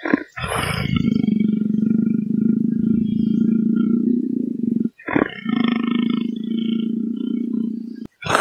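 Leopard growling in long, low, rasping growls, broken by a short pause about five seconds in and another near the end.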